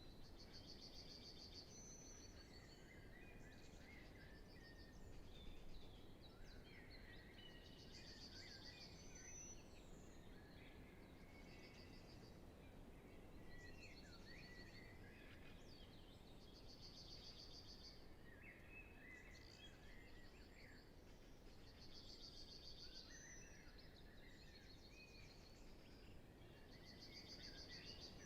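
Faint spring dawn chorus of many songbirds singing at once, with one bird repeating a short, high trilled phrase every few seconds, over a soft low background rumble.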